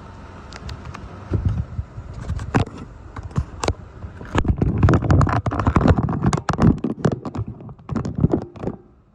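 Hurricane-force wind gusts and rain squalls hitting the microphone. Dense, irregular loud crackles and thumps come over a steady rush of wind, then fade out near the end.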